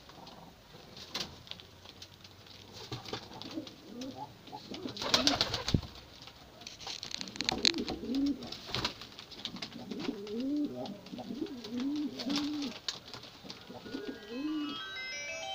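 Domestic fancy pigeons cooing: a run of repeated low coos that rise and fall, closest together in the second half, with sharp clicks and scratchy rustling from the birds moving on the floor, loudest about five seconds in.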